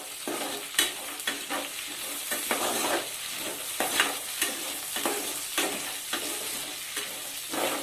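A tempering of onion, cashews, chana dal, dried red chillies and greens sizzling in hot oil in an aluminium pot, stirred with a spatula that scrapes and knocks against the pot about twice a second.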